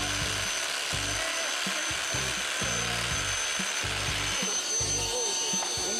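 Bosch 18 V cordless hammer drill with its dust-extraction attachment running, drilling a hole while the extractor sucks up the dust. Its motor gives a steady high whine.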